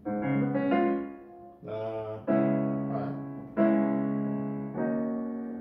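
Sampled Steinway grand piano software instrument played from a MIDI keyboard: about six chords struck in turn, going back and forth between two chords, each left to ring and fade.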